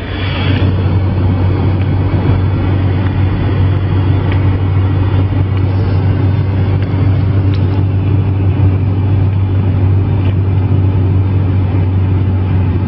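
Inside a car driving at speed on an expressway: a steady low drone of engine and tyres with road hiss.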